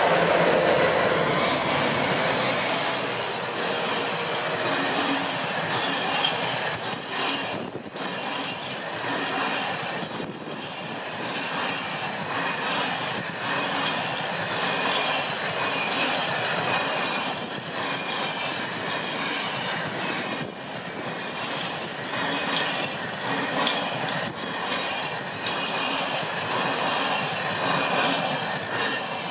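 Diesel-hauled freight train of empty log wagons passing close by. The locomotive goes by at the start, then the wagons' wheels clatter over the rail joints in a run of irregular clicks, with a thin high squeal of wheels on rail.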